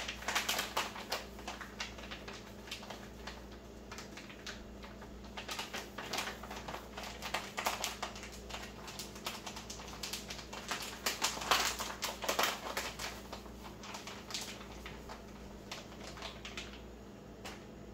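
A package being crumpled and squeezed by hand to loosen food pieces stuck together, an irregular run of crinkles and crackles that stops about a second before the end. A faint steady low hum runs underneath.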